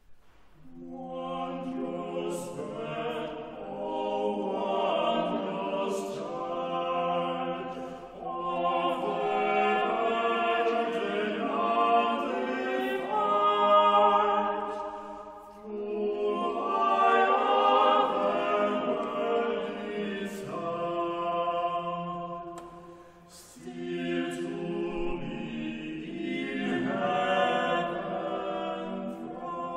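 Small a cappella vocal ensemble of two sopranos, alto, tenor and baritone singing in several parts. The voices come in right at the start and pause briefly between phrases about halfway through and again about three quarters through.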